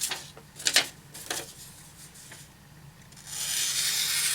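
A few light clicks, then a steady dry scraping hiss lasting about two seconds, starting near the end. This fits a knife blade being drawn along a surface to test its edge.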